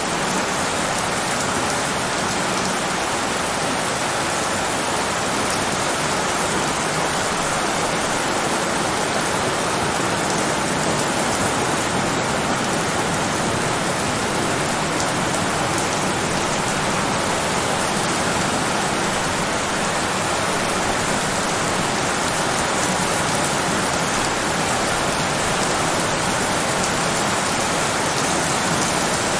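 Steady rain sound, an even hiss with no pauses or changes in level.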